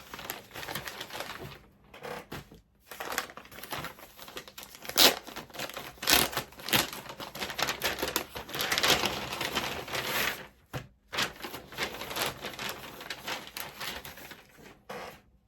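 Crinkling and rustling of a mailing envelope and its packaging being opened by hand, with many irregular sharp clicks and taps, pausing briefly a few times.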